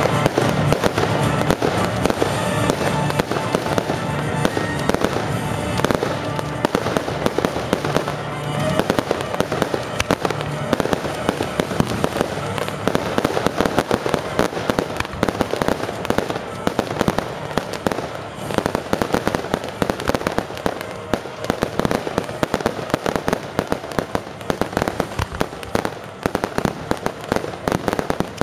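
Fireworks display: aerial shells bursting in rapid, overlapping bangs and crackles, coming thicker from about ten seconds in. Music plays underneath, clearest in the first several seconds.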